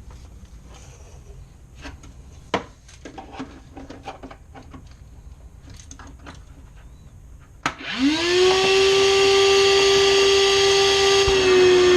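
Scattered light knocks and clatter of handling, then nearly eight seconds in a vacuum cleaner switches on with a click, its motor whining up in pitch and settling into a loud steady hum.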